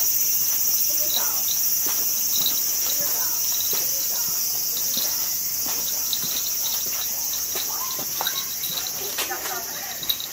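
A steady, shrill chorus of insects, with short high chirps repeating through it.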